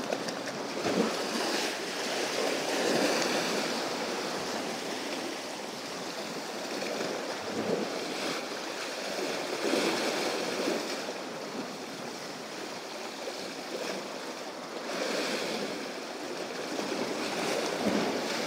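Sea waves washing against a rocky shore, swelling and ebbing in repeated surges every few seconds.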